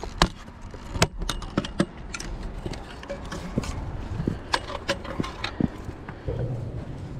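Irregular sharp clicks and knocks of fishing gear handled on bare granite rock: a landing net with a telescopic metal handle being moved and set down on the stone. A low rumble comes in near the end.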